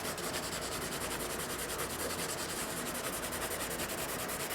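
Charcoal rubbing steadily across drawing paper in strokes.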